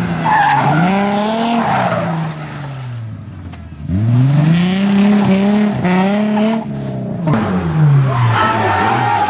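A Ford Sierra rally car's engine is revved hard, with the revs climbing and falling through gear changes and tyres squealing as it drifts through the bend. The revs drop back for a couple of seconds, then climb and hold high. About seven seconds in, a cut brings in a second rally car whose engine revs fall away.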